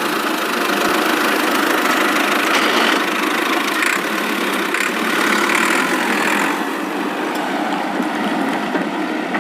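Mini tractor's engine sound running steadily, thin and without any deep low end.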